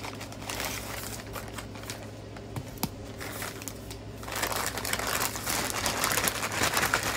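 Thin clear plastic packaging bag crinkling and rustling as a rolled diamond-painting canvas is slid out of it and handled, with scattered clicks at first and a denser, louder crackle from about four seconds in. A low steady hum runs underneath.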